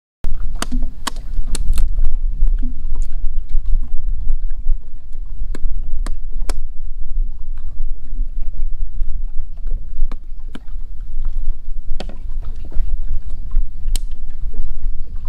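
Knife and small hatchet blows chopping and splitting small pieces of wood: about a dozen irregular sharp knocks over a steady low rumble.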